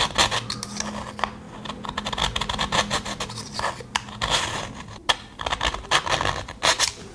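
Steel pocket knife blade being pulled repeatedly through the coarse carbide slot of a pull-through sharpener, two carbide blades set facing each other: a quick series of gritty metal-on-carbide scraping strokes as the blunt edge is reground.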